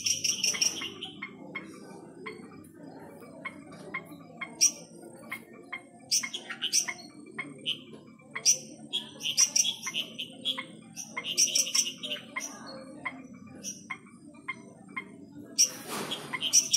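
Night chorus of several kinds of frogs calling at once: sharp clicks and short chirps, with pulsed bouts of several quick notes repeating every second or two. A brief scuffing noise near the end.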